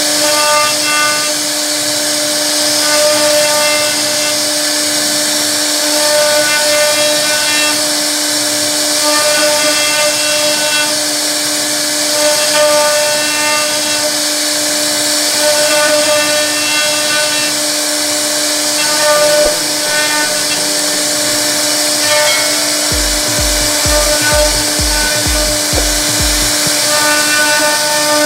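CNC router spindle running with a steady whine as its bit carves into a wooden board.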